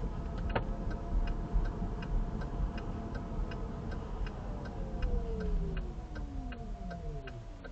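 Inside a 2023 Chevy Bolt EV: a turn-signal indicator ticks steadily about twice a second over low road rumble. From about five seconds in, the electric drive motor's thin whine glides down in pitch as the car slows under regenerative braking.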